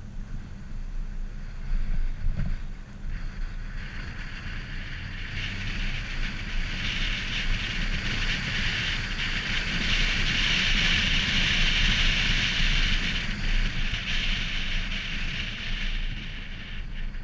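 Wind rushing over a car-mounted camera's microphone, over a steady low rumble of the moving car. The rush grows louder through the middle, then eases near the end.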